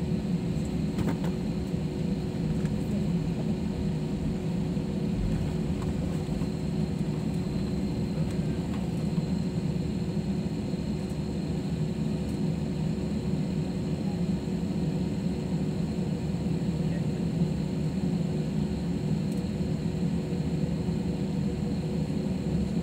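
Cabin noise of a jet airliner taxiing onto the runway: a steady low rumble from the engines and airframe, with a few faint held tones in the hum.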